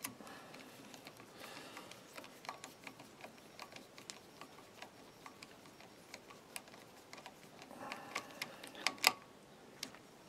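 A ratcheting hand driver clicking in small, uneven runs of ticks as a screw is tightened into the brush box of a Lucas ACR alternator, with a few louder clicks near the end.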